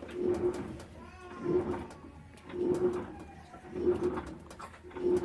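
Samsung washing machine running its wash cycle, its drum motor giving a short low hum about once every second, each one rising and falling in loudness.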